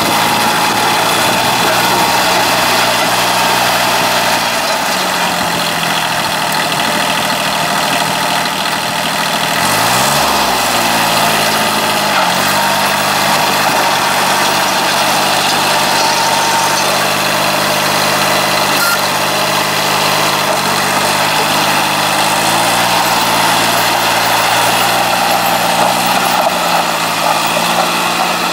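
1983 Kubota B6100 compact tractor's three-cylinder diesel engine running as the tractor drives. The engine speed shifts several times, with a quick rise and fall about ten seconds in.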